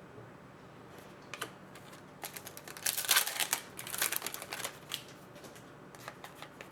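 Hockey trading cards being handled and flipped through: a couple of sharp clicks, then a run of crisp rustling clicks in the middle, and a few small clicks near the end.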